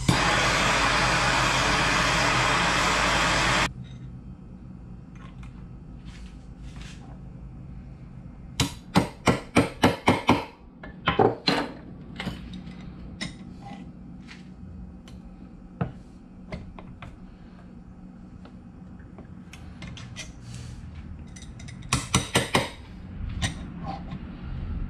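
Handheld gas torch hissing steadily as it heats a drilled-out broken stainless bolt to free it, shut off abruptly after about four seconds. Then come metal hand tools clinking and clicking against the outboard's midsection: a quick run of sharp clinks around the middle, scattered single clicks, and another short cluster near the end as a wrench is fitted.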